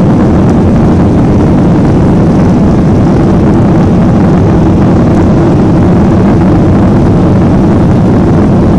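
Boeing 737 cabin noise during the climb after takeoff: the jet engines and rushing air make a loud, steady rumble, heaviest in the low range, heard from inside the cabin.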